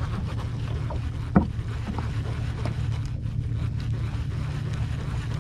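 Steady low hum of a boat's motor, with small scattered clicks from a baitcasting reel being cranked and one sharp knock about a second and a half in.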